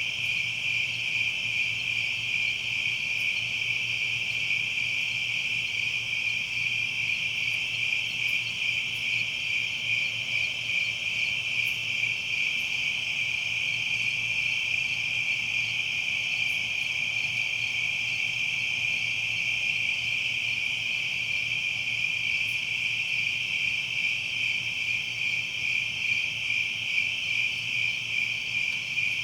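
Summer-night chorus of insects, a dense, unbroken trill that holds steady throughout.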